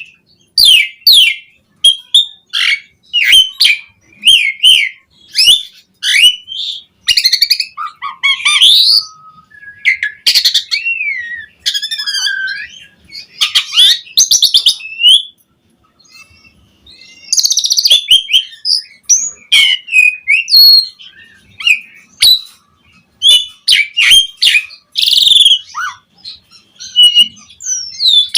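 Asian pied starling (jalak suren) in full song, a fast, varied string of whistled glides, sharp chips and raspy chatters mixed with mimicked phrases. It breaks off for about a second and a half just past the middle, then carries on.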